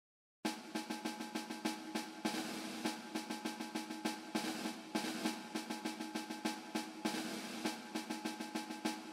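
Background music with a quick, even drum beat over held notes, starting after a brief moment of silence.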